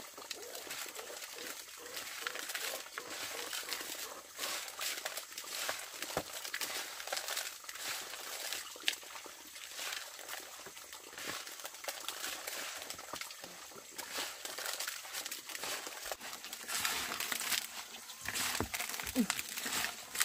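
Dense, irregular rustling and crinkling with many small clicks, the sound of things being handled, with a short pitched sound near the end.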